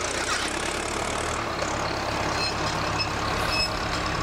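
Tractor engine running steadily under load as it pulls a disc-coulter seed drill across a field, with a constant low hum.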